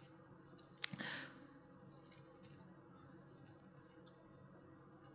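Near silence of room tone, broken about a second in by a few faint clicks and a short rustle of paper being handled.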